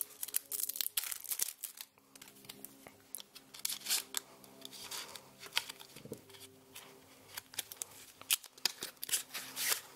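Crinkling plastic wrap, tearing, and scattered light clicks and crackles as a new deck of playing cards is unsealed and its paper tuck box opened.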